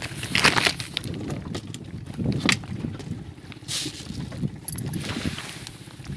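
Water splashing at the stern of a small boat as a hooked fish is brought to the surface, several short splashes over a steady wash of wind noise on the microphone.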